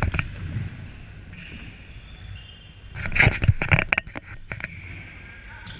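Futsal being played in an echoing sports hall with a wooden floor: a low background of play, then a cluster of sharp knocks about three seconds in.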